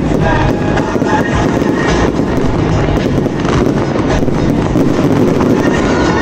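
Fireworks display: a loud, dense, continuous crackle and hiss of ground fountains and rising comets, with aerial shells bursting overhead.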